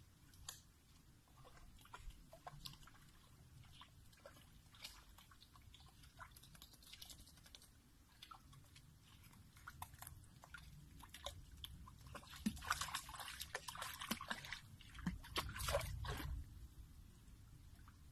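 A dog wading in a shallow stream: faint wet clicks and drips, then a busier stretch of splashing from about twelve to sixteen seconds.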